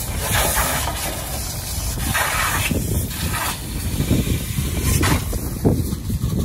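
High-pressure washer jet spraying water onto a truck trailer's wheels and underside: a hiss that swells and fades as the lance moves. Heavy wind rumble on the microphone runs underneath.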